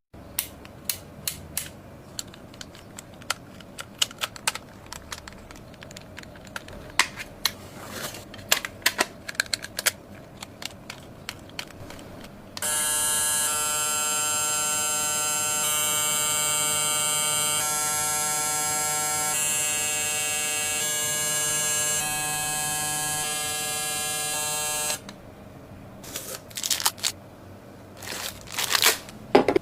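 Light plastic clicks and taps from handling, then a VERO cordless hair clipper switched on, running with a steady buzz for about twelve seconds and switched off suddenly, followed by more clicks.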